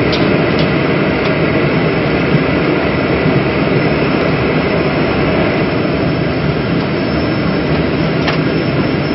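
Boeing 747 jet engines heard from inside the passenger cabin while the airliner taxis toward the runway: a steady, even engine and airflow noise with no build-up in power.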